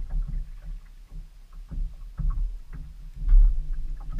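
Low rumble with irregular light knocks and rattles: handling noise on a bass fishing boat while a fish is being played. The rumble swells loudest about three seconds in.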